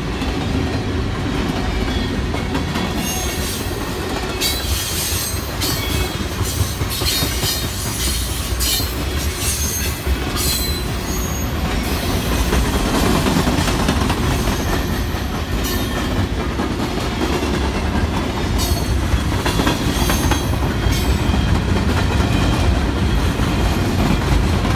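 Freight cars (gondolas and covered hoppers) of a long freight train rolling past close by: a steady rumble of steel wheels on the rails with clickety-clack over the joints. High wheel squeals come and go, mostly in two stretches, a few seconds in and again after the middle.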